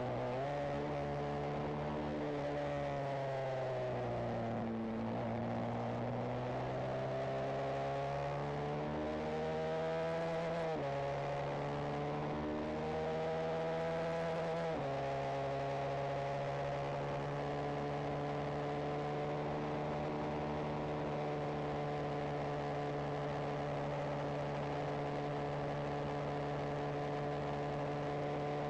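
Benelli TNT 125's single-cylinder four-stroke engine heard from the rider's seat on the move. Its note falls as the bike slows, climbs again through two gear changes about halfway through, then holds steady at cruising speed.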